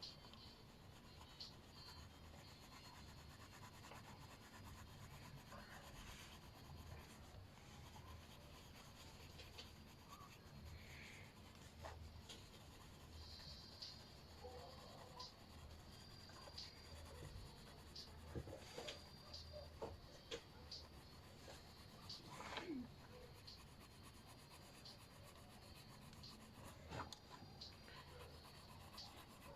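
Faint scratching and rubbing of a colouring tool on paper as a drawing is coloured in, with a few sharper ticks now and then.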